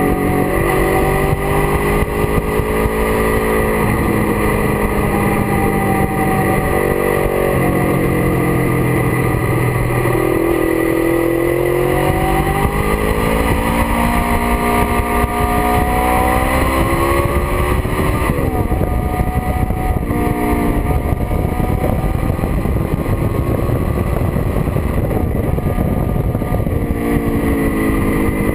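Kawasaki GPZ 500's parallel-twin engine pulling along the road, its note climbing and dropping back over and over as the bike accelerates and changes gear, with steady wind rush at speed.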